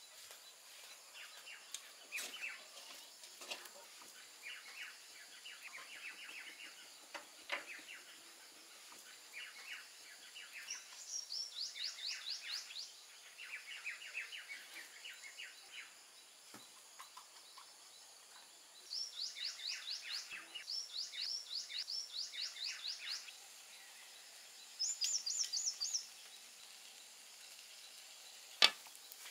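Small birds calling: repeated chirping phrases and fast high trills in several bouts. A few faint knocks, and one sharp click near the end.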